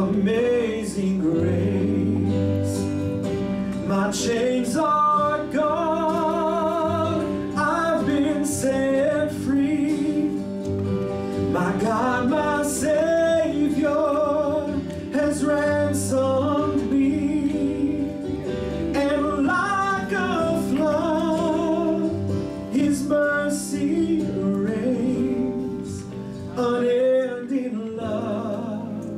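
A man sings a gospel song with vibrato into a handheld microphone, over acoustic guitar accompaniment.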